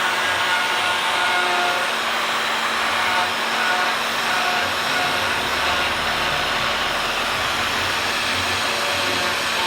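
Power tool motor running steadily, a continuous even whir and rush of air with no pauses.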